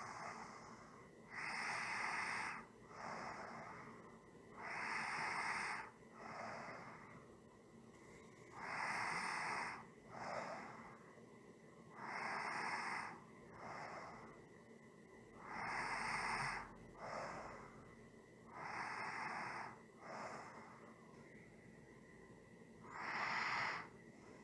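A person breathing slowly and evenly: seven breaths, each a louder breath of about a second followed by a shorter, softer one, repeating about every three and a half to four seconds.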